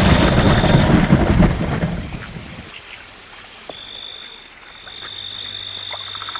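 A thunderclap rumbling and dying away over the first two seconds, followed by quiet rainy-night ambience with a steady high-pitched insect trill.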